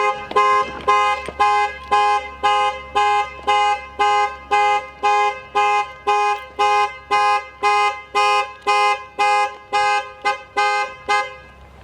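Vehicle horn sounding as a car alarm: the same two-tone honk repeating evenly, about two blasts a second, then cutting off near the end. The alarm was set off by pressing the wrong button.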